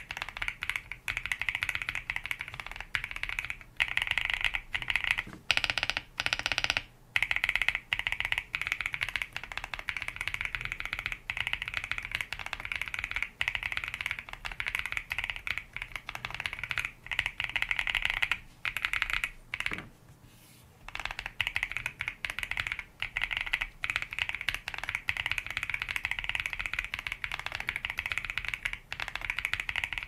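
Fast typing on a mechanical keyboard fitted with Aflion Thunder heavy tactile switches: a steady clatter of keystrokes, with a short pause about twenty seconds in.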